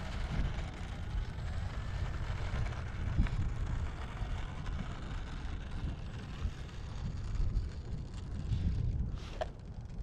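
Wind buffeting the microphone with a low rumble, over the faint, wavering whine of an electric RC plane's motor and propeller as the model taxis.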